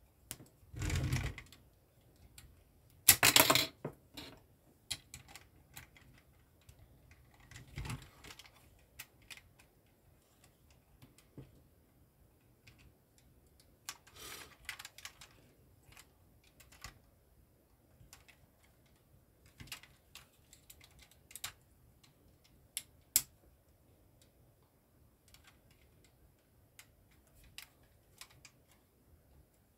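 Plastic LEGO bricks clicking and clattering as a small brick-built model car is pressed together and handled: scattered light clicks, with short bursts of clatter, the loudest about three seconds in.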